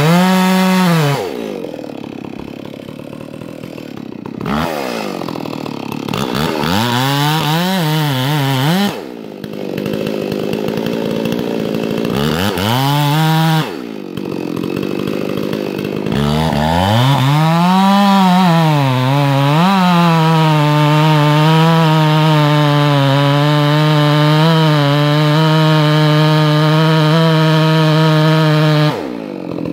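Two-stroke chainsaw revving up and down in several short bursts, then held at a steady high speed for about nine seconds while cutting wood, dropping back near the end.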